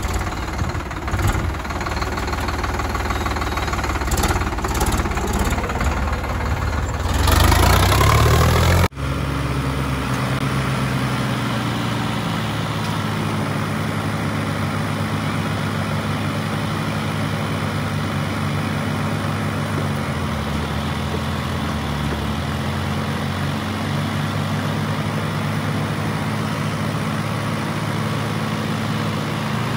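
Sonalika 50 RX tractor diesel engine working under load, towing another tractor by a chain. It runs rough and uneven, revs up to its loudest with a rising pitch near eight seconds in, then cuts off abruptly to a steady, even engine drone.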